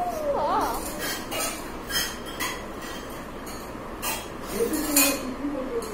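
Plastic marker pens clicking and tapping: about half a dozen sharp clicks spread through, with brief squeaky vocal sounds from a child near the start and about five seconds in.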